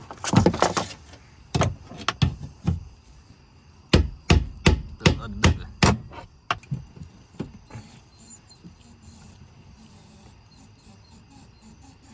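A run of sharp knocks, as fuel pump parts are knocked and worked into place by hand: a cluster in the first second, a few scattered knocks, then about eight quick ones between four and six seconds in, followed by faint clicking.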